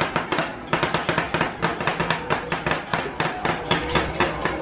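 Metal spatulas chopping and tapping quickly on the frozen steel pan of a rolled-ice-cream station, several sharp strikes a second, as the ice cream base is chopped while it freezes.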